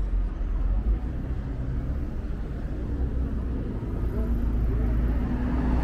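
City street ambience: a steady low rumble of road traffic, with a faint engine hum coming in during the second half.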